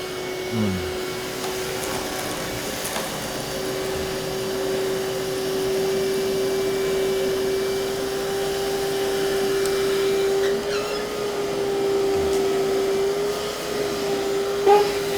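Tractor engine running steadily, with one even whine held throughout that wavers slightly about two-thirds of the way in.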